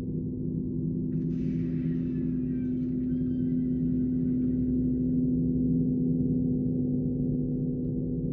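A steady, low sustained drone with held tones, dull and muffled, like a gong-like sound-design drone. Faint muffled higher sounds float over it from about one to five seconds in.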